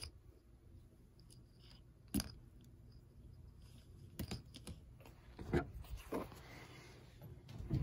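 Handling noise: a handful of sharp clicks and knocks at irregular intervals as parts and the phone are moved about, over a low steady hum.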